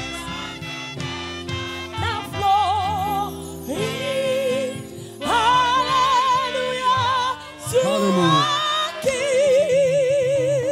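Church choir singing a gospel song with instrumental accompaniment, voices holding long notes with wide vibrato over sustained chords.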